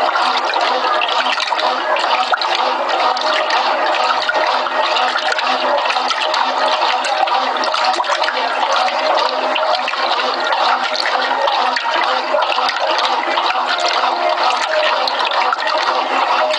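Water rushing and churning steadily inside a Brastemp Clean 6 kg washing machine's tub during the wash of a double duvet.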